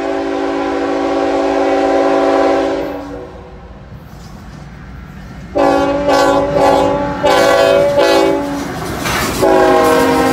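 Freight locomotive's multi-chime air horn sounding a long blast, then after a pause several more blasts in a row as the train approaches. Near the end the freight cars roll past with a clickety-clack of wheels on rail joints.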